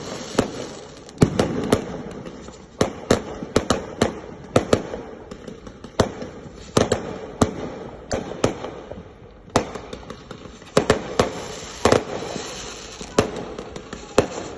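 Fireworks going off: an irregular run of many sharp bangs, some in quick clusters, over a steady crackling hiss.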